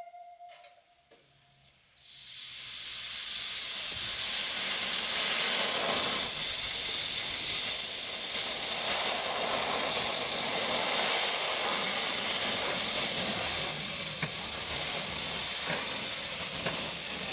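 Ridable live-steam locomotive venting steam low at the front: a loud, steady hiss starts suddenly about two seconds in and keeps on, dipping briefly a few seconds later.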